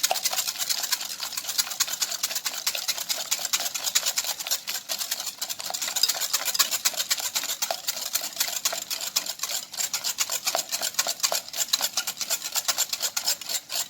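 Eggs and sugar being whisked in a bowl: a rapid, steady run of clicking and scraping as the whisk beats against the bowl, stopping at the end.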